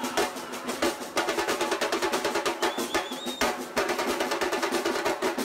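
Music with fast, busy drumming, the strikes coming in quick even rolls, and a brief high wavering tone near the middle.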